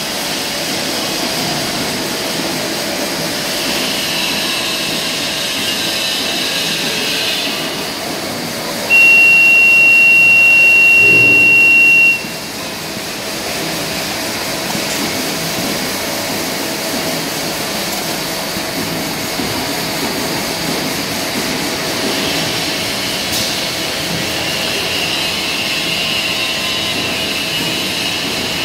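Industrial toilet-paper and kitchen-towel rewinder running with a steady mechanical whir. About nine seconds in, a loud, high, steady beep sounds for about three seconds and then cuts off.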